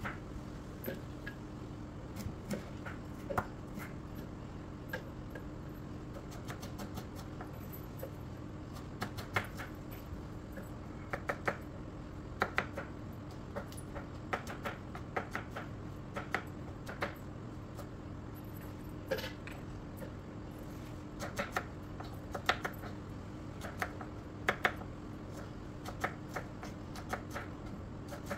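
Kitchen knife chopping shallots on a plastic cutting board: irregular sharp taps, sometimes in quick clusters of two or three, over a steady faint hum.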